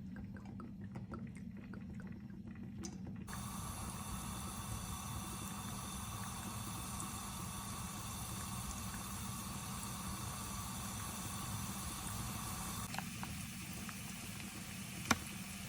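Steady hiss of water in a kitchen over a low hum, setting in abruptly a few seconds in, with one sharp click about a second before the end.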